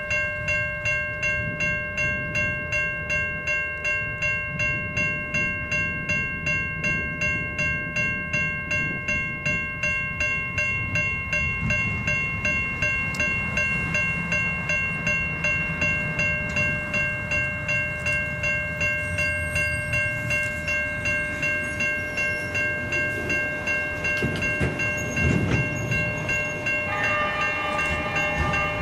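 Freight train passing with a low rumble, over a steady ringing tone that pulses about twice a second. Near the end, a cluster of higher tones joins in.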